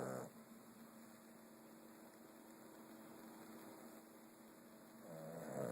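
A sleeping pet snoring slowly: a snore cuts off just at the start, then a pause of about five seconds holds only a faint steady hum, and the next pitched snore swells in near the end.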